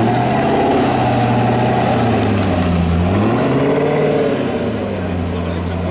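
A car engine revving: its pitch holds, dips about three seconds in, climbs again, then settles to a steady lower note near the end.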